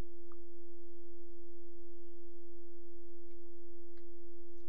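A steady, mid-pitched pure tone, one unchanging note with a faint overtone an octave above it, held without a break.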